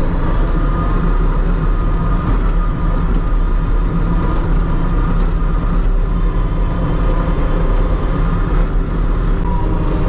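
Farm tractor engine running steadily as the tractor drives with its front loader, heard from the operator's seat.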